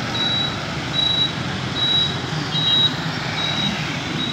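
Road traffic of motorbikes and cars running past, with a short high electronic beep repeating evenly, a little more than once a second.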